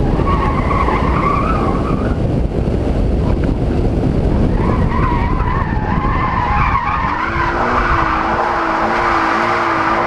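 A 2013 Scion FR-S driven hard on an autocross course, heard from a camera mounted on its side: a loud rush of wind and road noise, with the tyres squealing in wavering whines through the corners, twice in the first seven seconds, then a lower wavering squeal from about seven seconds in.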